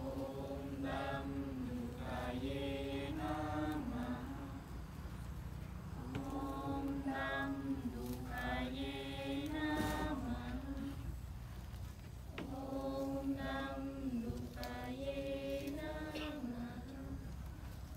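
Devotional chanting: a voice sings three long, slowly wavering phrases of a chant, each about four seconds with short breaks between, over a steady low hum.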